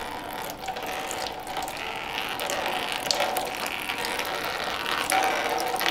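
Ratchet wrench clicking in short strokes as it works loose the oil drain plug on a 1934 Ford's oil pan.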